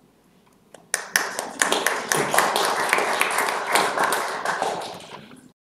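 Audience applauding, starting about a second in, easing off slightly and then cutting off abruptly near the end.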